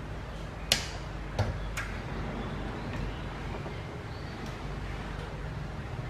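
A few sharp clicks and knocks, the loudest about a second in and two more soon after, over a steady low hum: the door and its wall-mounted alarm box being handled, with no siren tone sounding.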